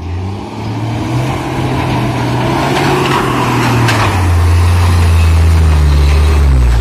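Heavy truck's diesel engine working under load, its pitch rising just after the start, then dropping back about four seconds in as it gets louder and holds steady.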